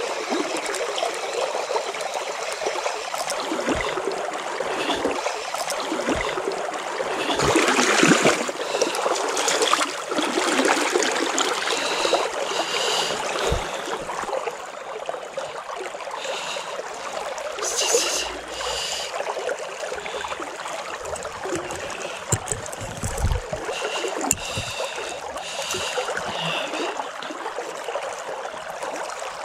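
Mountain river water running and trickling close by, steady throughout, with a louder splashing surge about eight seconds in.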